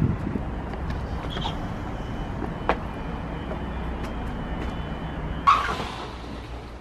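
Steady low rumble of street traffic. A single sharp click comes about two and a half seconds in, and a brief loud rushing noise comes near the end.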